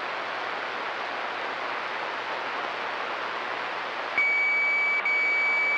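CB radio receiver on channel 28 hissing with open-channel static between transmissions. About four seconds in, a steady high beep tone is keyed over the channel. It drops out for an instant and then holds on.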